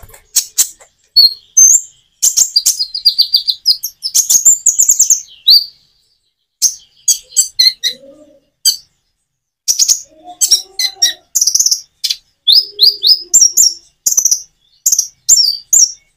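Kolibri ninja (konin) sunbird singing: bursts of rapid, high, sharp chirps and trills broken by short natural pauses.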